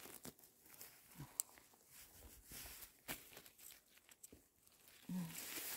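Faint, scattered rustles and small snaps of mushrooms being picked from the forest floor.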